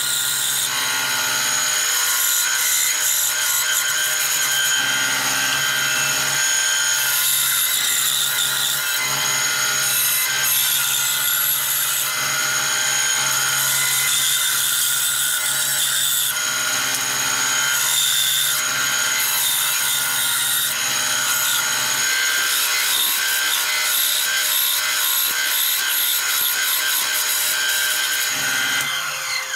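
Benchtop band saw running steadily, its blade cutting curves in a hardwood board.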